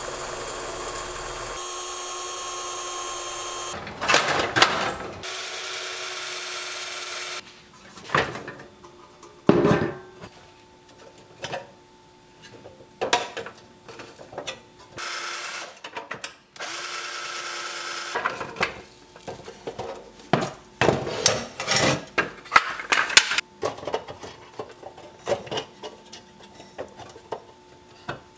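Electric drill running in several short bursts of a few seconds each, a steady whine, while a pressed-steel Tonka dump truck is taken apart. Sharp clinks and knocks of metal parts being handled fall between the runs.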